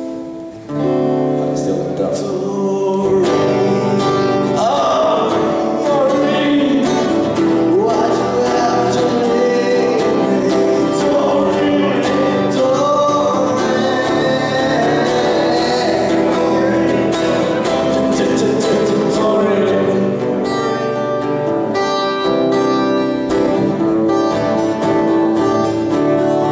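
Live acoustic guitar strummed steadily with a voice singing over it. A short break just after the start before the strumming comes back in.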